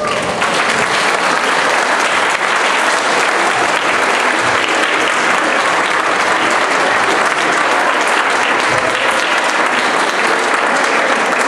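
An audience applauding steadily with dense clapping.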